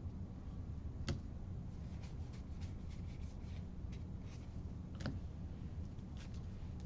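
Baseball trading cards being flipped through and slid across one another by hand: a run of light clicks and rustles, with two sharper clicks about a second in and about five seconds in.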